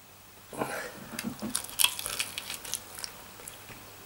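Chewing a chicken wing coated in naga chilli sauce, close to the microphone: a short murmur about half a second in, then a run of quick sharp mouth clicks and smacks.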